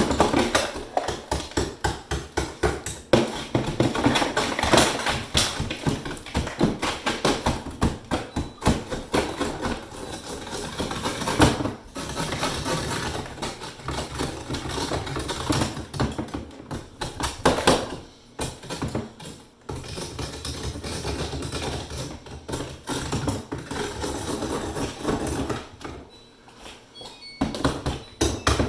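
A metal breaker bar striking and chipping away ice built up in a refrigerator ice maker: a rapid run of hard knocks, several a second, broken by a few short pauses.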